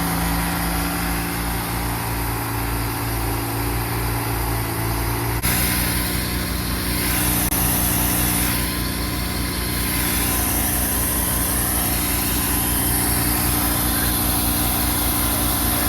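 An engine running steadily, its sound changing abruptly about five seconds in, then holding steady again.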